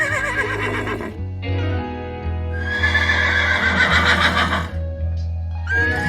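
Horse whinnying over background music: a whinny fading out about a second in, a longer one in the middle, and another starting near the end.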